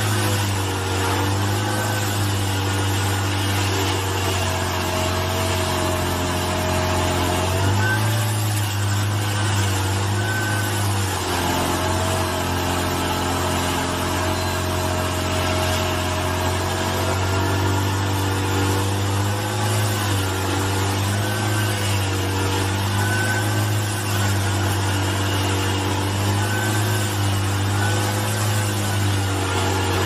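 Stump grinder's engine running steadily under load as its toothed cutter wheel grinds into a tree stump. The engine note shifts for a few seconds, from about eight seconds in.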